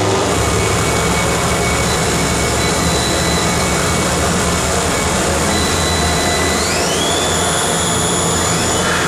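Harsh noise wall played live through a table of effects pedals and electronics: a loud, unchanging roar of dense noise over a low drone. Thin high tones ride on top and glide upward about seven seconds in.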